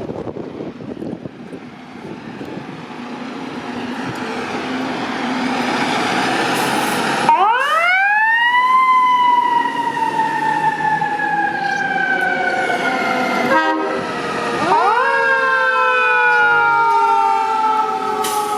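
Federal Q2B mechanical siren on an FDNY fire apparatus winds up about seven seconds in, peaks, then slowly coasts down in pitch. It winds up again about fifteen seconds in and coasts down once more. Before the siren there is a noisy rumble that grows steadily louder.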